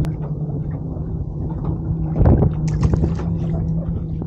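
A boat's motor humming steadily at a low pitch, with a few knocks and clatters on the boat.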